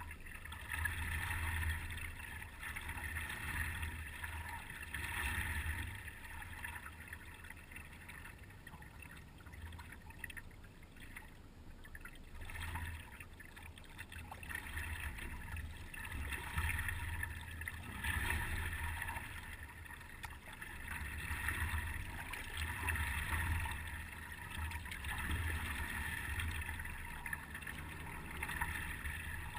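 Water lapping and swishing against a paddleboard's nose as it is paddled across calm water, swelling every couple of seconds with the strokes, over a low rumble.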